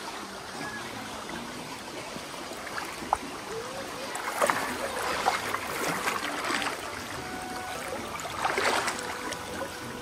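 Shallow stream running steadily over stones, with bursts of splashing from about four seconds in and again near the end as a small dog wades through the water.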